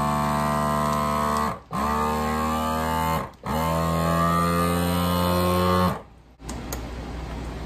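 Countertop vacuum food sealer's pump motor humming in pulses as it draws the air out of a bag. It cuts out briefly twice, rising in pitch as it spins back up each time, and stops about six seconds in, the bag now drawn tight around its contents.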